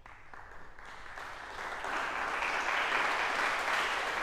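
Audience applause that begins suddenly and swells, reaching full strength about two seconds in and then holding steady.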